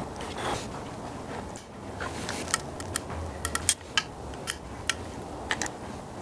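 Hand caulking gun clicking irregularly as its trigger is squeezed to lay a bead of silicone sealant around an engine timing cover, over a low steady hum.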